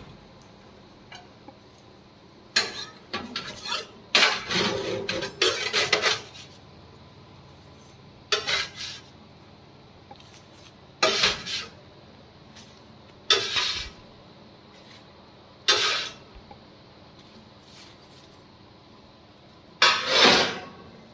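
Metal spatula scraping baked puff pastries off a metal oven tray and setting them down on a plate: a series of short scrapes and clatters a few seconds apart, the longest about four seconds in.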